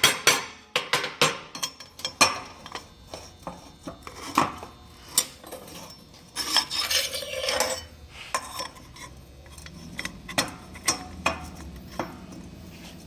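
Hand tools and small metal parts being worked on a bench: taps come close together at first and then thin out to scattered clinks and knocks, with a scraping rub lasting about a second around six and a half seconds in.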